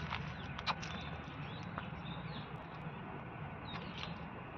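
Outdoor background noise with a steady low rumble, a few sharp clicks in the first second and short bird chirps later on.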